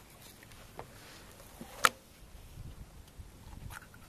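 Light handling sounds of a knife cutting into a stingray, with scattered faint ticks and one sharp click about two seconds in.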